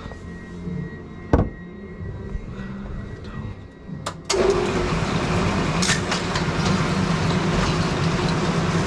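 Brunswick bowling pinsetter machinery: a single sharp clack about a second and a half in, then a few seconds later the machine starts up suddenly and runs steadily with a low hum.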